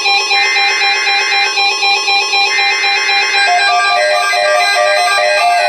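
Emergency Alert System SAME header: harsh buzzing digital data bursts about a second long each, twice, a second apart, ending a little past the middle. Background music of plucked, guitar-like notes plays throughout.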